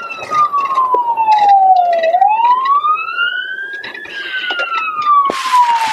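Police car siren on a slow wail: the tone falls, rises and falls again, each sweep taking about two seconds, with scattered knocks and rattles and a short burst of hiss near the end.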